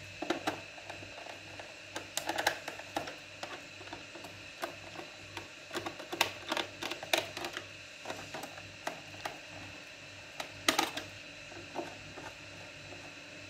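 A small screwdriver tightening screws into the back cover of a lamp base: irregular small clicks and scrapes of the tool and screws, over a faint steady hum.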